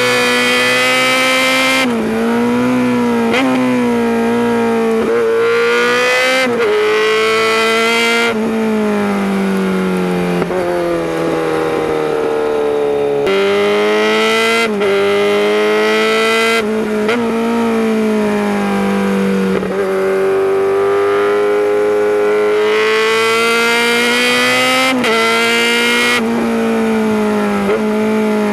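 Kawasaki Z900RS Cafe's 948 cc inline-four engine pulling hard up a winding mountain road, heard from the bike. The engine note keeps changing: it drops sharply again and again as the throttle is rolled off or a gear is changed, then climbs back up or sinks slowly over several seconds, and it turns louder and harsher during the harder pulls.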